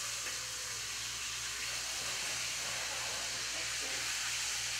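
A large cut of beef searing in a hot stainless-steel sauté pan: a steady sizzling hiss as the meat browns to build a crust.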